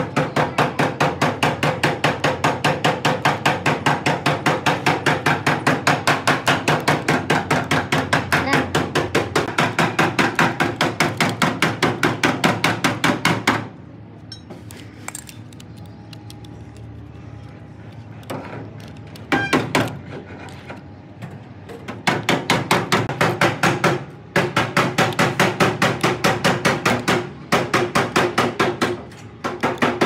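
Rapid, even hammering, about four or five blows a second, which stops about halfway through and starts up again a few seconds later.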